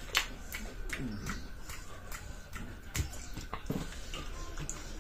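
Eating sounds from a meal of snails: irregular sharp clicks and mouth smacks.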